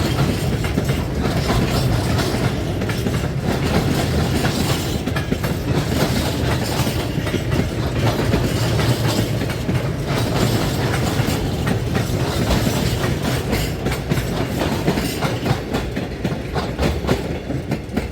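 Railway train passing, its wheels rattling in a steady clickety-clack of clacks over the rail joints, easing slightly near the end.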